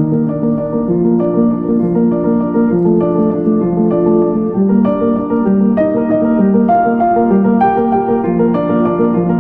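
Slow instrumental background music: sustained chords that change about once a second, with a higher line of notes coming in about halfway through.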